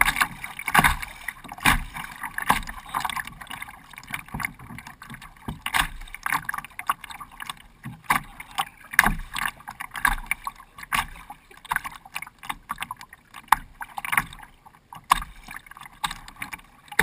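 Choppy lake water rushing and slapping against the plastic bow of a Jackson Coosa kayak as it moves through the waves. Sharp, irregular slaps come every second or so over a steady wash of water.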